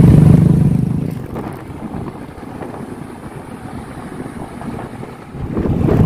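Motorbike on the move, its engine mixed with wind on the phone's microphone. It is loud for about the first second, drops to a quieter rumble, and swells again near the end.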